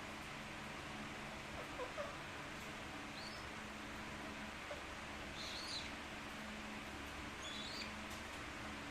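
A parrot giving a few short, high-pitched chirps or squeaks, about three of them a couple of seconds apart, over a steady background hiss and hum.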